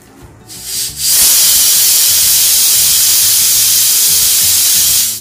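Stovetop pressure cooker letting off a 'whistle': steam jets out of the weight valve with a loud, steady hiss that starts about a second in and cuts off suddenly at the end. It is one of the whistles counted to time the cooking of the sambar lentils.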